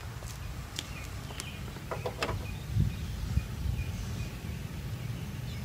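Light clicks and knocks from a plastic 3D-printed bracket being handled and held up against the car's front valance, with a dull thump a little before the middle. Under them runs wind rumbling on the microphone, with faint bird chirps.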